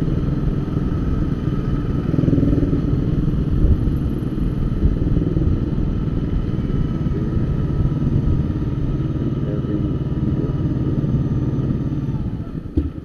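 Honda CBR250R's single-cylinder engine running at low speed through slow traffic, the note rising and falling a little with the throttle, dropping away near the end.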